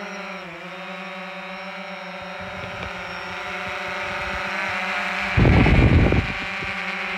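DJI Phantom 4 quadcopter's propellers and motors buzzing in a steady multi-tone whine while it hovers close by, slowly getting louder as it comes overhead. Near the end, as it passes directly above, a loud rumble of rotor downwash buffets the microphone for under a second.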